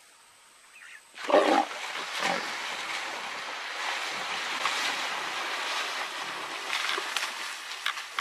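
A lion gives a sudden loud snarl about a second in, then heavy splashing and churning water as it lunges and leaps out of the river away from a crocodile guarding a hippo carcass.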